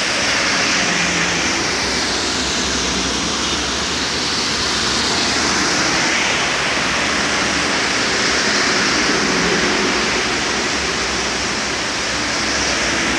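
A steady, loud rush of heavy rain, mixed with the hiss of tyres from traffic passing on the wet toll road.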